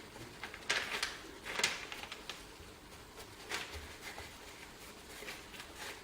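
Soft, scattered rustles and light clicks from hands handling greased lathe apron parts, a few isolated sounds some seconds apart.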